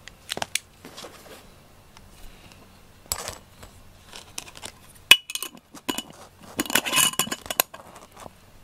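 Glass jar handled by hand: a few light knocks, a sharp glass clink about five seconds in with a brief ring, then about a second of rattling and scraping.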